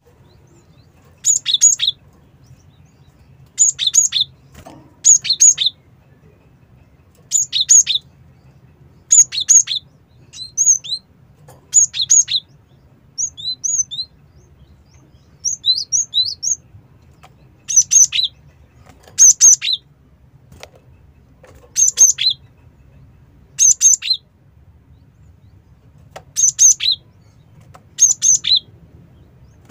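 Cinereous tit (gelatik batu) singing: short phrases of sharp two-part notes, a high note dropping to a lower one, repeated about every two seconds. Softer rising chirps fill the gaps between about ten and seventeen seconds in.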